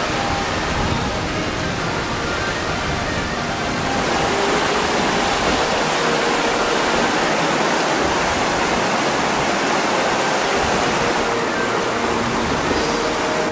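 Shallow creek rushing over rocks in small rapids, a steady loud rush of water that grows a little louder about four seconds in.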